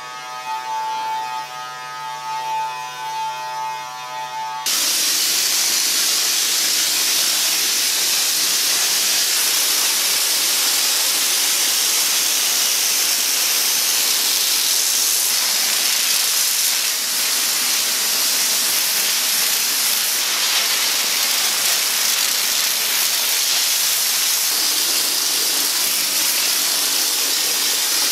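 Steam car-wash machine's lance blasting high-pressure steam onto the car's bodywork: a loud, steady hiss that begins suddenly about five seconds in. Before it, a steady whining hum.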